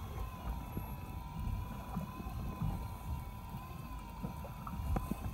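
Wind and choppy sea rumbling around a small fishing boat, with a faint steady whine holding one pitch throughout.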